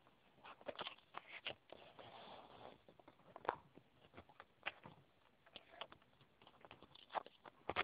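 Faint, irregular clicks and taps with a short rustle about two seconds in: hands handling the quadcopter with the phone mounted on it, picked up by the phone's own microphone.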